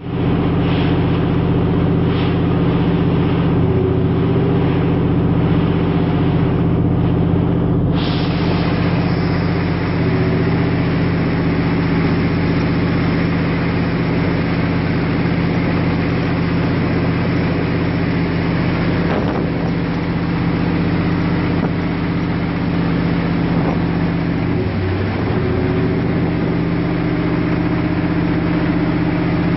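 Boat engine running steadily, a deep even drone, with a hiss that grows louder about eight seconds in. The engine's pitch sags briefly near the end.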